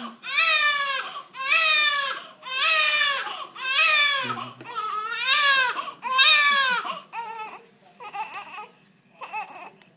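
Newborn baby crying in repeated wails, about one a second, each wail falling in pitch; the cries grow shorter and weaker after about seven seconds.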